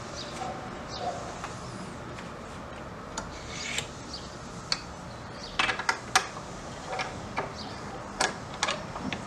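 Old wooden louvered shutters being unlatched and pushed open by hand: wood rubbing and scraping against the frame, with the metal latch giving a series of sharp clicks and knocks, most of them bunched in the middle and a couple more near the end.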